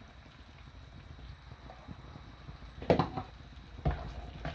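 A pan of butter chicken gravy cooking with a low steady noise as double cream is stirred in, broken by a few sharp knocks of a utensil against the pan, the loudest about three seconds in and another about a second later.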